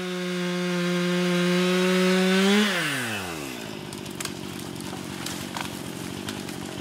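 Gas chainsaw running at full throttle through a cut. About two and a half seconds in the throttle is released and the engine pitch falls away quickly, settling into a rough idle with a few faint clicks.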